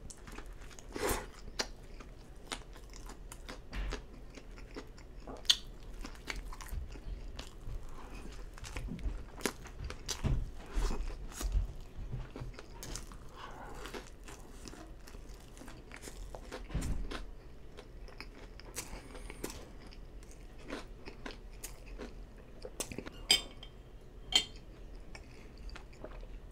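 Close-miked chewing and biting of a soft-bun slider burger and french fries: irregular wet mouth clicks and chewing noises with no speech.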